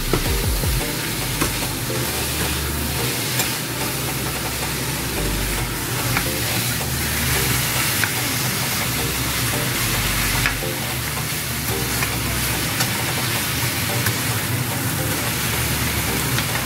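Pork pieces and sliced red onion sizzling in a frying pan while they are stirred and turned with a metal spatula, with scattered clicks of the spatula against the pan.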